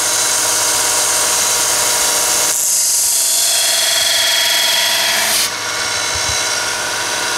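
A 1x30 belt sander runs steadily. About two and a half seconds in, a twist drill's point is pressed against its Norton Blaze abrasive belt and ground for about three seconds, a higher, hissing grind, then lifted off. This is a finishing pass on the drill's cutting edge and relief during hand sharpening.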